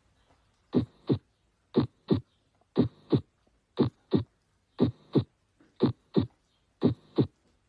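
Recorded human heart sounds: a steady lub-dub, two short beats about a third of a second apart, repeating about once a second (roughly 60 beats a minute).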